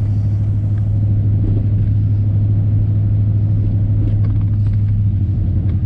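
Old Chevy pickup driving, heard from inside the cab: a steady, loud low hum of engine and road noise.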